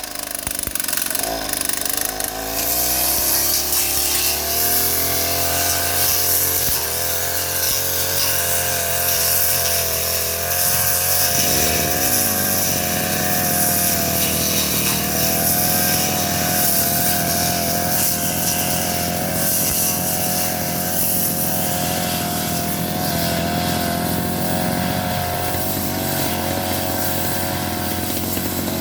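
Petrol brush cutter engine revving up over the first couple of seconds, then running steadily at high speed, with its pitch dipping briefly twice.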